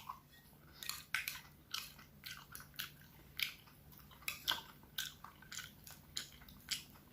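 Close-up eating sounds: chewing and biting, with short, irregular soft clicks about twice a second.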